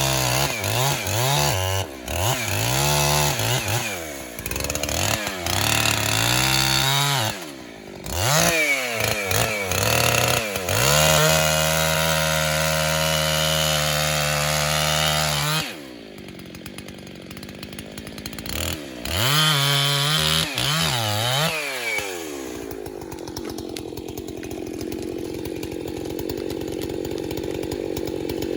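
Chainsaw cutting into a poplar trunk during felling, its engine revved up and down over and over and held at full throttle for several seconds in the middle. It drops back to idle, is revved once more, then idles steadily for the last several seconds.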